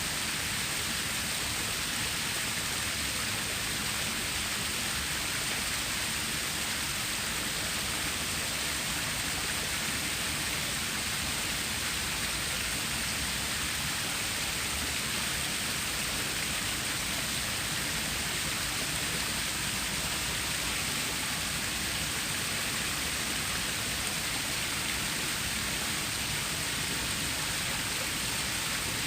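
Water of a stream or small waterfall flowing, a steady rushing hiss that does not change.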